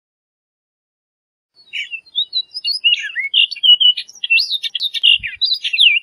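Orchard oriole singing: a rapid, jumbled run of varied whistled notes and slurs, starting about a second and a half in.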